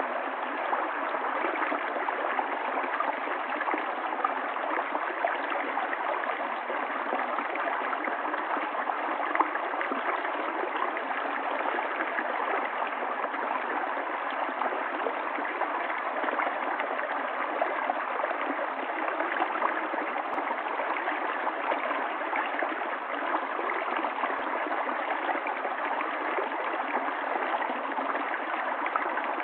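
Running water flowing steadily, an even, unbroken rush.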